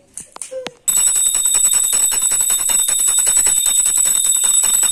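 A puja hand bell rung rapidly and without pause for the aarti, its high ringing tones held over a quick run of strikes. It starts about a second in.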